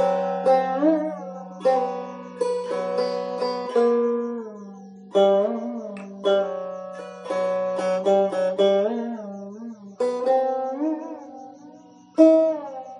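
Background music: a plucked string instrument playing a slow melody, some notes bending in pitch, over a steady low drone.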